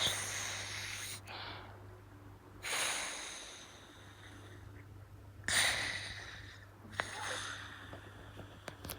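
An elderly, sick dog breathing noisily, with loud airy snorts coming every one to three seconds over a steady low hum.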